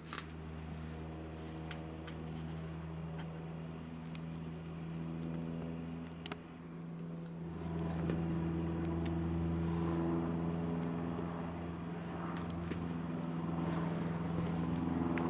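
An unseen engine running steadily with a low hum, growing louder about halfway through, with a few faint clicks over it.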